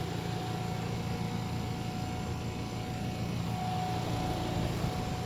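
Outdoor air-conditioning condenser unit running: a steady low hum with a faint higher tone over it.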